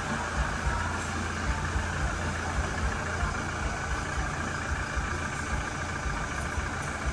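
A vehicle engine idling steadily, with a rumbling low end and no siren sounding.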